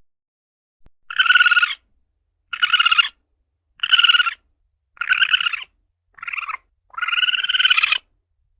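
Asian palm civet (luwak) calling: six separate pitched calls at about one a second, each around half a second long, a shorter one near the end followed by a longer one of about a second.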